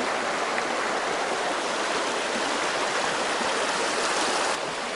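Small, shallow mountain stream running over a rocky bed, a steady even wash of water.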